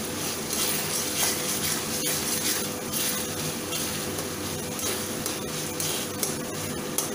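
Chopped tomato, capsicum and onion sizzling in oil in a metal kadhai while a metal spatula stirs them, scraping and clicking against the pan now and then.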